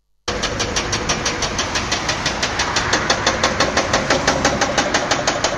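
Excavator at work: a machine running with a rapid, even knocking of about eight beats a second. It starts abruptly just after the beginning.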